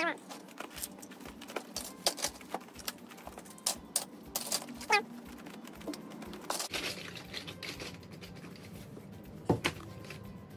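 Hard plastic toys knocking and clattering against each other as they are dropped into a toy box, in a run of sharp irregular clicks, with two short falling squeaks among them.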